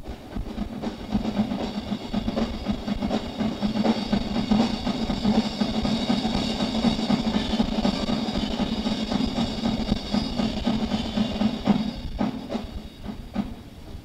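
Live rock drum kit played fast and busily, with a wash of cymbals and a steady low hum underneath. The playing eases for a moment near the end.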